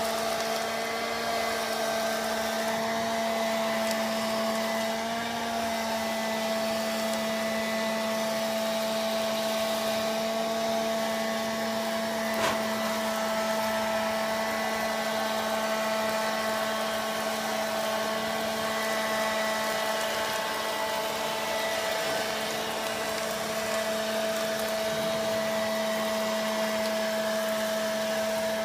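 Small vacuum cleaner running steadily with an even motor hum, sucking loose fur from a rabbit's coat. A single faint click about twelve seconds in.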